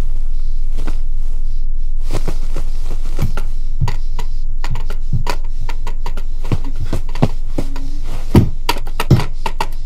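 Horror-film sound design: a steady low drone under irregular sharp clicks and knocks. The clicks start about two seconds in and come faster and louder toward the end.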